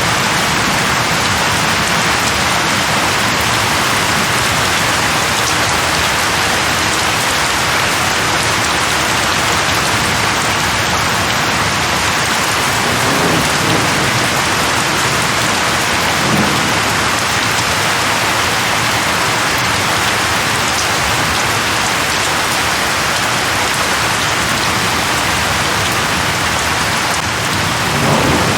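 Steady rain falling on leaves, with low rumbles of thunder about halfway through and again near the end.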